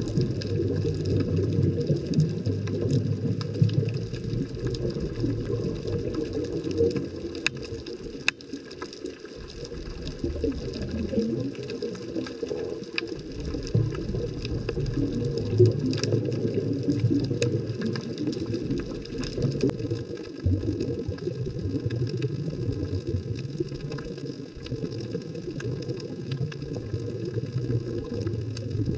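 Underwater sound picked up by a submerged camera on a rocky seabed: a steady low rush of moving water, with scattered faint clicks.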